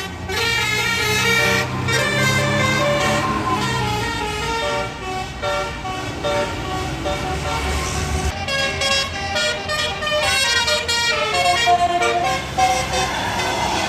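Bus 'telolet basuri' multi-trumpet horn playing a melody of quickly changing notes, over the low drone of the bus's engine, which is strongest in the first few seconds.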